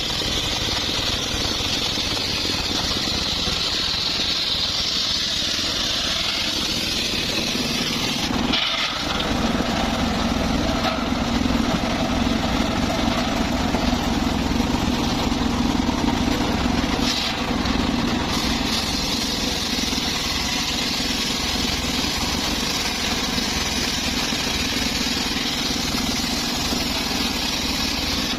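Circular saw rig running steadily, cutting mahogany. About nine seconds in the sound briefly dips, then settles into a stronger, lower hum and gets a little louder.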